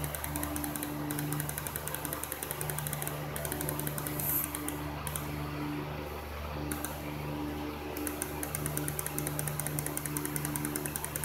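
Steady low machine hum with a fast, fine ticking over it; the ticking drops out for a second or two at a time and comes back.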